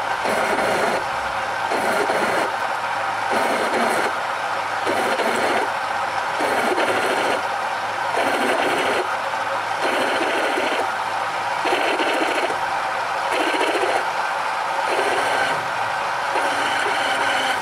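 Large drill press driving a big twist drill through thick steel flat bar under cutting oil, a steady machining whine with a lower pulse recurring about every second and a half.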